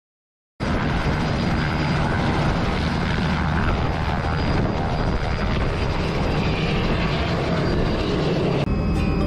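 Small helicopter lifting off from a helipad and flying away, its rotor and engine running steadily. The sound starts abruptly about half a second in and changes character near the end.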